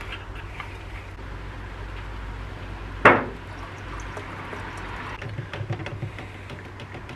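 Liquid poured from a metal tin into a plastic mixing cup while 2K clear coat and hardener are mixed, with one sharp knock about three seconds in. Near the end a stirring stick knocks in the cup.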